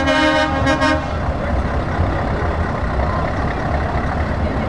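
Truck air horn sounding in short blasts over the first second, over the steady low rumble of a Scania S650 V8 diesel tractor unit pulling away; after the horn stops, only the engine's low rumble remains.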